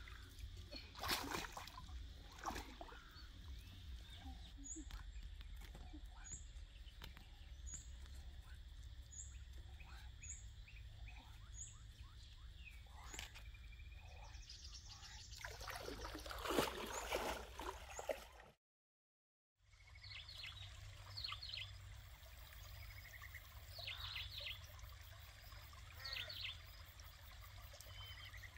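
Shallow stream water splashing and trickling around someone wading and handling plants, with rustling of leaves and undergrowth; the loudest rustle-and-splash comes a little past the middle. Birds call, first as a short high chirp repeated about once a second, later as quicker chirps. The sound cuts out completely for about a second around two-thirds of the way through.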